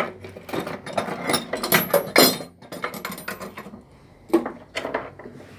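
A rapid run of knocks and clatters from handling the water pump's electric motor on a workbench among loose wrenches, then two single knocks near the end.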